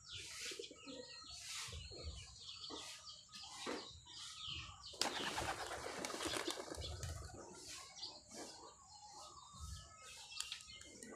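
A flock of pigeons flapping their wings as they are released from the loft, with a dense burst of wingbeats about five seconds in. Short bird calls run throughout.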